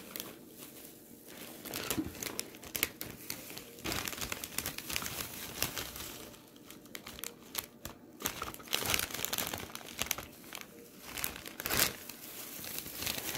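Plastic packaging crinkling in irregular bursts as it is handled.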